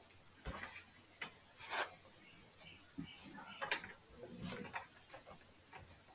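Faint, irregular clicks and ticks, about five of them, over quiet room tone.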